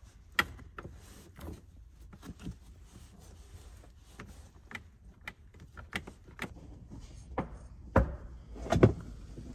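Scattered, irregular clicks, knocks and rubbing from hand work in a vehicle interior: a plastic air tube being pushed through the console trim and under the seat, with two louder knocks near the end.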